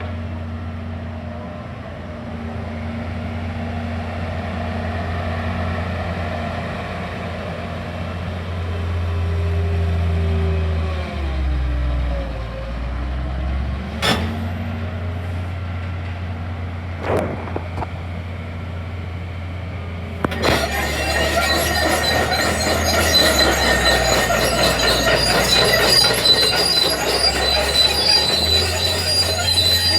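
Doosan DX340LC tracked excavator's diesel engine running steadily, its note dipping under load for a couple of seconds, with two sharp knocks in the middle. About two-thirds of the way in, loud squealing and clanking starts and continues: the steel tracks travelling.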